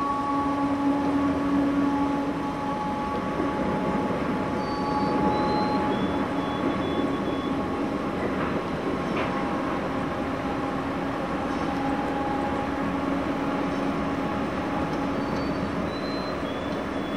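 Canadian Pacific container freight train rolling along the track, a steady rumble of wheels on rail with a few steady ringing tones held over it.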